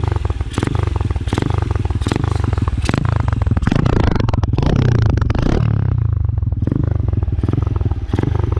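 Earl 150 classic motorcycle's engine running, its exhaust firing in a quick, even beat. It is revved up about three and a half seconds in and settles back just before six seconds.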